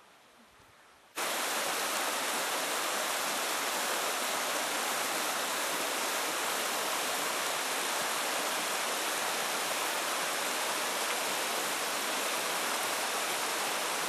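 A river rushing over rocks, heard close up: a loud, steady rush of water that starts abruptly about a second in.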